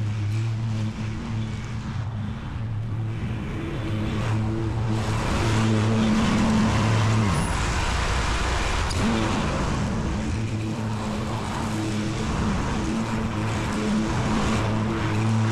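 Lawn mower engine running steadily under load, with a rush of blade and grass noise that swells in the middle. The engine tone dips and drops out briefly about seven seconds in.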